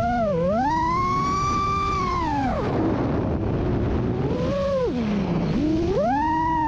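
FPV quadcopter's brushless motors and propellers whining, the pitch rising and falling with throttle over a steady rushing noise. The whine climbs and holds high, drops sharply about two and a half seconds in, dips low near five seconds, then climbs again near the end.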